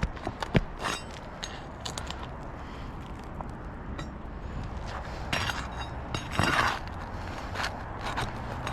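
Scraping and light knocks on an asphalt shingle roof during a shingle repair, with two louder scrapes about five and a half and six and a half seconds in.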